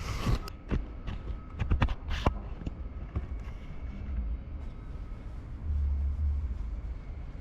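A few sharp knocks and clicks in the first couple of seconds, over a steady low rumble that swells for about a second near the end.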